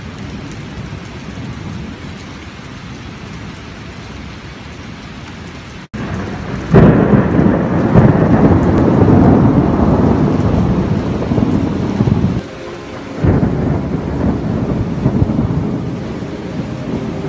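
Thunderstorm: steady rain, then heavier thunder rumbling in about seven seconds in, easing briefly and rumbling again about thirteen seconds in.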